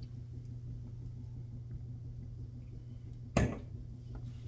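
Low steady hum of room tone, broken once about three and a half seconds in by a short, sharp noise.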